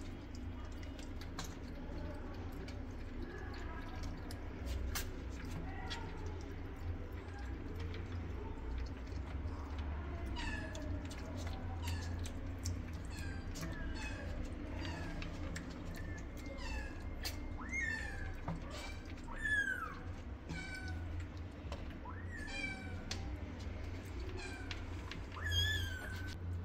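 Six-week-old kittens mewing: from about ten seconds in, many short, high, downward-bending mews, one or two a second, over a steady low hum.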